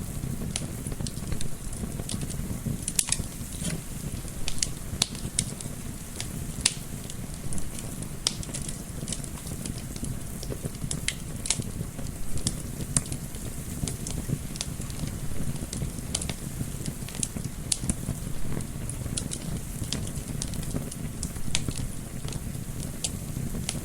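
Wood fire crackling, with irregular sharp pops and snaps over a steady low rumble of flame.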